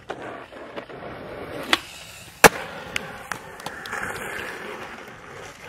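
Skateboard wheels rolling over concrete, with a few sharp clacks of the board striking the ground, the loudest about two and a half seconds in.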